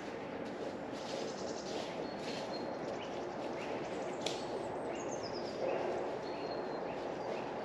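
Woodland ambience: a steady background hiss with small birds chirping and whistling now and then.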